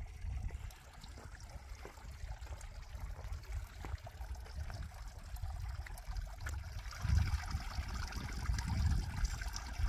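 Water trickling steadily into a stone-walled pond, with a low, gusty rumble of wind on the microphone that gets heavier about seven seconds in.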